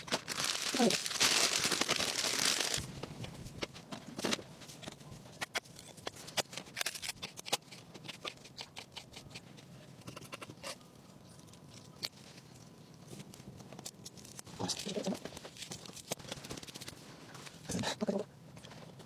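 A plastic bag crinkling and rustling for the first few seconds, then a run of short sharp taps like a knife chopping on a cutting board.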